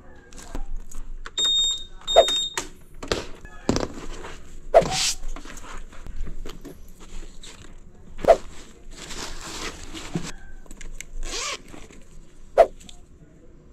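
Handling gear in a Honda Airblade 150 scooter's under-seat storage: a string of sharp clicks and clunks as the seat is opened, then rustling of cloth and plastic bags as things are moved about. Two short electronic beeps sound about one and a half and two seconds in.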